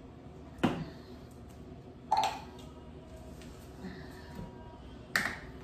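Handling noise of a plastic juice bottle and blender cup on a kitchen counter: three sharp knocks and clicks, about half a second in, two seconds in and near the end, with a few fainter taps between, over a faint steady hum.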